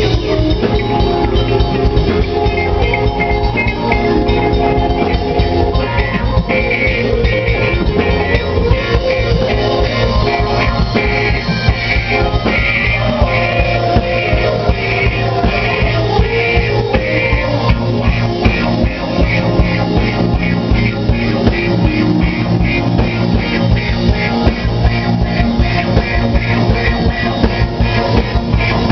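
Live band playing loud: electric guitar, bass guitar and drum kit with a steady beat.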